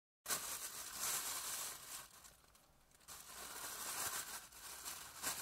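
Plastic bag being crumpled and rubbed: dense crinkling that starts abruptly after a moment of silence, dies down about two seconds in, and picks up again a second later.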